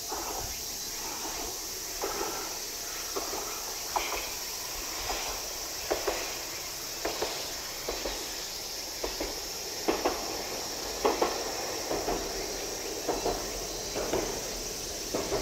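A steady high-pitched drone of summer insects in the fields, with short sharp ticks about once a second, several of them in quick pairs.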